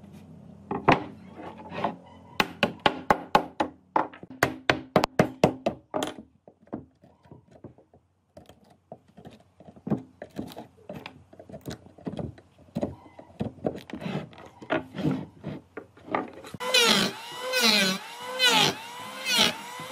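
A run of sharp wooden knocks, then scattered clicks and scraping as a chisel works bark and rotten wood off the edge of a tree-trunk slice. About 16 seconds in, an electric hand planer starts cutting across the slice's face in quick repeated passes, its pitch dipping and recovering with each pass; it is the loudest sound.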